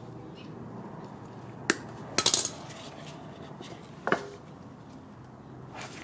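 Pliers and metal parts clinking against an aluminium intake manifold during hose work: a single sharp clink, then a quick rattle of several, then one more about two seconds later.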